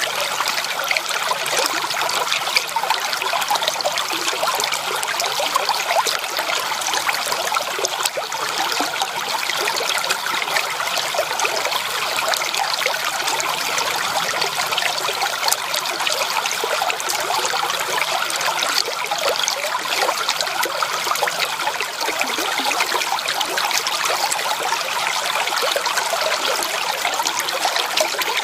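Shallow creek water trickling and burbling steadily over stones, with many small splashes.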